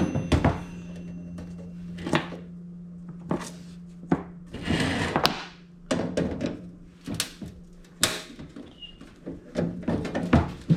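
Irregular knocks, clanks and a scrape of a toaster oven's sheet-steel housing being handled and pried at during dismantling.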